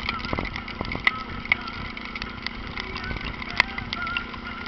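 Honda NX4 Falcon 400 motorcycle's single-cylinder engine running steadily, with a few sharp clicks, the loudest about three and a half seconds in.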